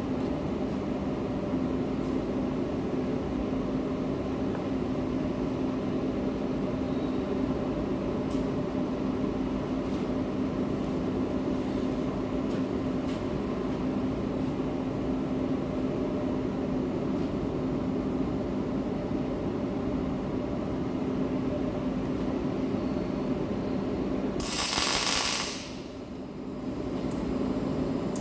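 MIG welding arc crackling steadily with a constant hum. About 24 seconds in the sound breaks into a short loud hiss and drops away, then builds again near the end.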